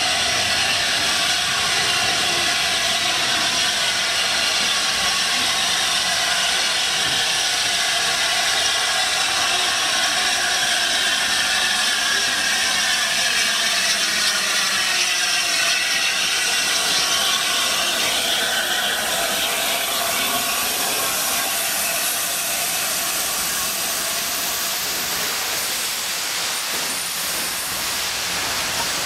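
LNER A4 Pacific No. 4464 'Bittern' coming slowly into the platform, its escaping steam making a steady hiss that eases slightly near the end.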